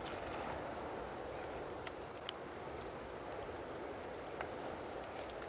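An insect calling in short, evenly repeated high chirps, about two a second, over a steady rushing background noise.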